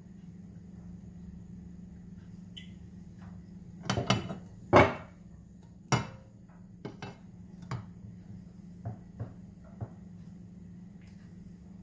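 Kitchen clatter of a crepe pan and utensils on a gas hob: a cluster of loud knocks about four to five seconds in, a sharp knock about a second later, then a few lighter taps, over a steady low hum.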